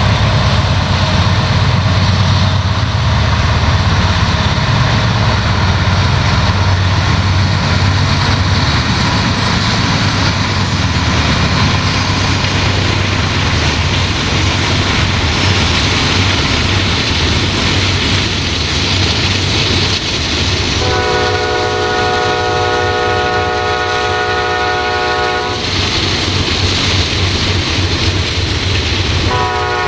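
A train passing close by at speed, a steady heavy rumble of locomotive and wheels on rail. The locomotive's air horn sounds a multi-note chord for about four and a half seconds about two-thirds of the way through, and starts again at the very end.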